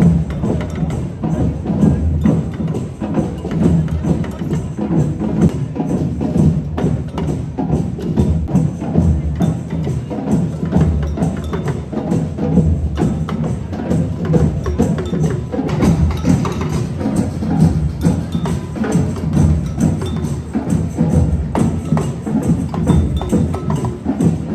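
Percussion music: drums and hard wooden knocks in a dense, steady rhythm.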